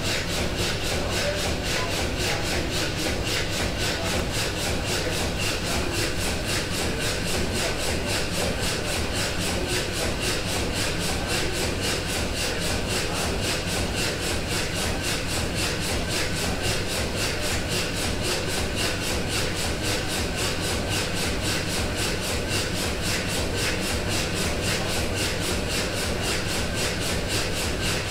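1904 Sulzer tandem-compound steam engine and the air pump of its condenser running steadily: an even mechanical churning with a regular beat of about three strokes a second.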